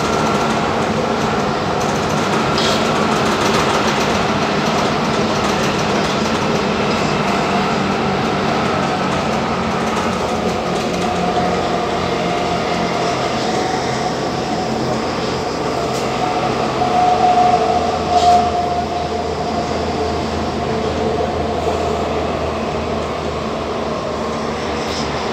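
Athens Metro Line 1 electric train running, heard from inside the carriage: a steady rumble of wheels on rail and running gear. A steady whine comes in about halfway through and peaks briefly at its loudest about two-thirds of the way in.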